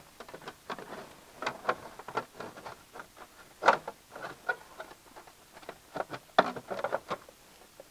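A molded glove box liner being handled and fitted into a car's dash opening: irregular light taps, clicks and scrapes of the liner against the dash, with a sharper knock about halfway through and a busier cluster near the end.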